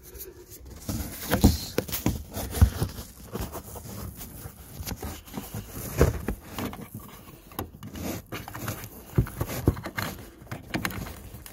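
Hands fitting a small replacement battery into the plastic battery compartment of a BMW telematics unit: irregular plastic clicks, taps and knocks with rustling, a few sharper knocks standing out.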